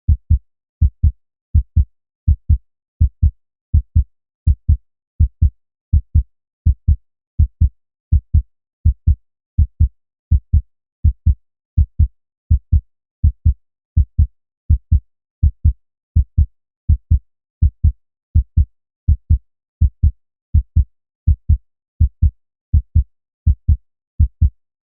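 Human heartbeat, a steady lub-dub: paired low thumps repeating evenly at roughly 80 beats a minute, with silence between beats.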